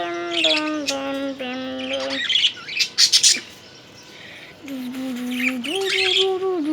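Small pet cage birds chirping and squawking in short bursts. Underneath runs a low tune of held notes that step between a few pitches, with a break of about two seconds in the middle.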